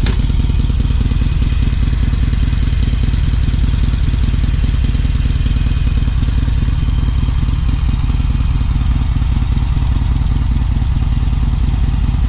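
A 2019 Harley-Davidson Sportster Iron 883's air-cooled V-twin idling steadily, with no revving, as the bike creeps forward on the clutch's friction zone without throttle.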